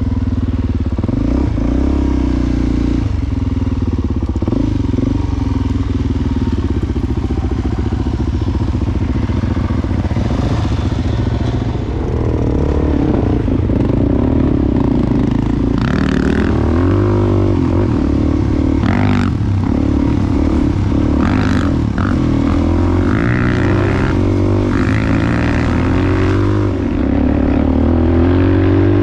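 Dual-sport motorcycle's single-cylinder engine running under way on a dirt trail, its pitch rising and falling with the throttle. A few sharp clatters come past the middle.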